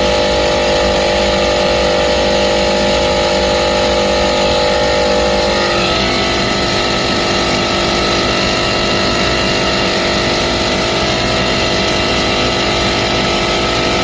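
Air-conditioner compressor running with a loud, steady mechanical noise and several steady hums, the abnormal sound of a faulty compressor. About six seconds in, the strongest hum stops and the tones shift, then the running continues.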